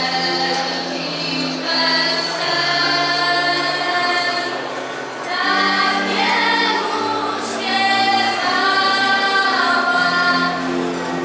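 Choir singing a Polish Christmas carol (kolęda) in phrases of a few seconds, over sustained low notes.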